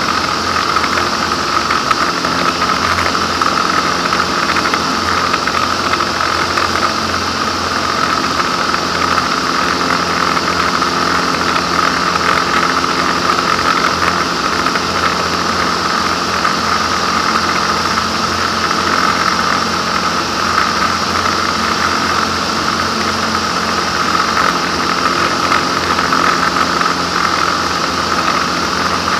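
Ultralight aircraft's piston engine and propeller running steadily in cruise, a constant loud drone heard from inside the cockpit.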